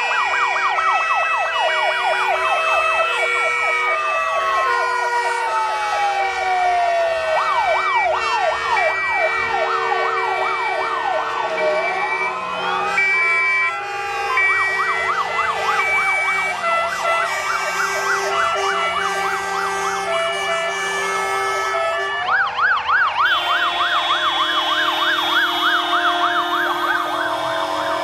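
Several emergency vehicle sirens from a police car and a column of fire engines sounding at once: fast yelping sweeps and slower rising and falling wails overlap, with a few steady tones under them. About two-thirds of the way through a new fast yelp grows louder as another fire engine comes close.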